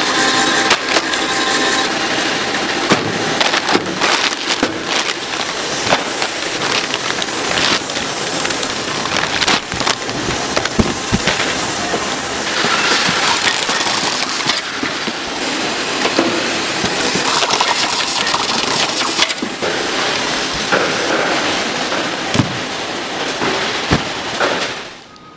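Food-production machinery running with a dense clatter of small knocks and crackles, cutting off just before the end.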